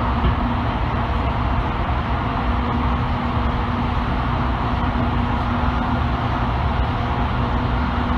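Electric commuter train running at steady speed through a tunnel, heard from inside the car: an even rumble of wheels on rail with a constant low hum.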